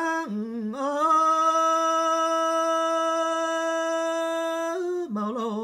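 A solo unaccompanied voice singing a traditional ballad. After a short wavering phrase it holds one long steady note for nearly four seconds, then drops lower for a brief phrase near the end.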